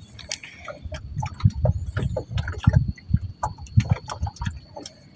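Water slapping and knocking against the hull of a small wooden outrigger boat, in irregular low thuds about once or twice a second.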